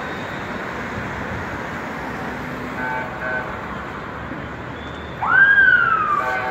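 Traffic at a busy city intersection: a steady rush of passing cars, with two short car-horn toots about three seconds in. A little after five seconds comes the loudest sound, a tone that rises sharply then slides slowly down over about a second, and a horn starts sounding near the end.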